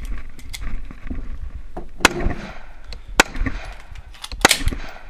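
Scattered rifle shots on a shooting range: a few sharp, spaced cracks, the loudest about two, three and four and a half seconds in, with smaller clicks between.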